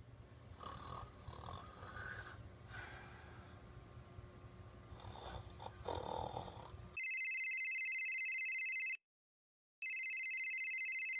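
Snoring for about the first seven seconds. Then a phone ringtone rings twice, each ring a steady warbling tone about two seconds long with a short gap between, louder than the snoring.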